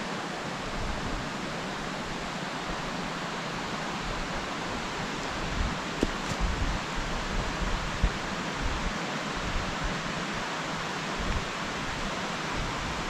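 Steady rushing noise of a nearby stream, with an uneven low rumble of wind on the microphone and a faint click about six seconds in.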